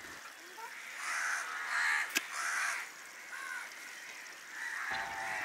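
Crows cawing several times, with one sharp click about two seconds in.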